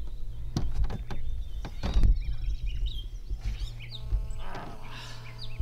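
Songbirds chirping around the water, with a few knocks on the boat and a louder thump about two seconds in over a steady low hum.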